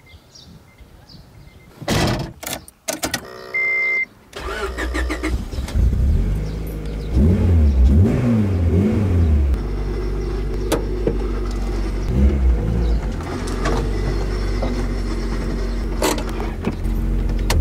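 Honda Integra Type R (DC2) 1.8-litre VTEC four-cylinder being started: a couple of thumps and a short electronic beep, then the engine cranks and catches, is blipped up and down three times, and settles to a steady idle.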